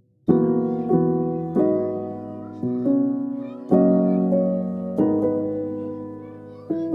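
Music: a piano comes in suddenly just after the start, playing slow, ringing chords. About seven chords are struck, each left to fade before the next.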